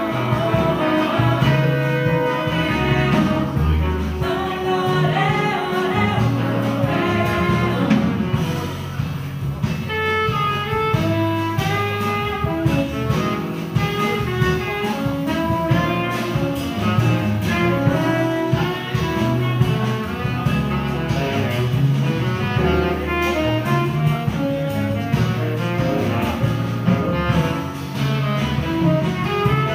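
Small jazz ensemble playing live: saxophones and trombone over piano, double bass and drums, with a steadily moving bass line and many short horn notes throughout.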